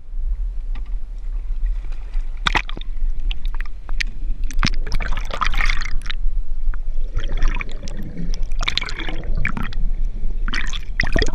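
Water gurgling and bubbling as picked up by an action camera held underwater, in uneven bursts with sharp clicks and knocks over a steady low rumble.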